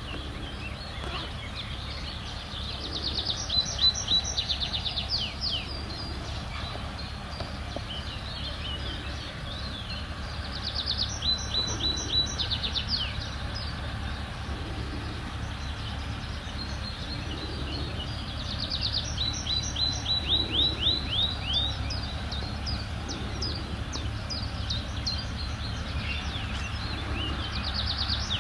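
A songbird sings a short phrase of rapid repeated high notes four times, about every eight seconds, over a steady low rumble.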